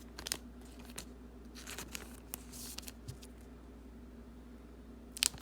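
Football trading cards being handled and flipped through by hand: faint rustling and light ticks of card stock, with two sharper clicks near the end.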